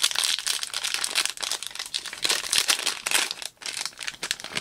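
Foil wrapper of a Panini Chronicles Draft Picks football card pack crinkling in a fast run of crackles as it is peeled open by hand.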